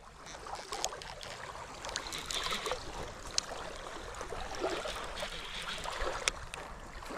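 Water lapping gently, with a few faint scattered clicks.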